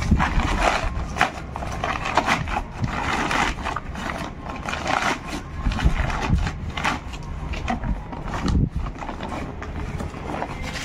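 Plastic sack of wall-texture powder rustling and crinkling in irregular bursts as it is gripped, folded back and tipped toward a bucket.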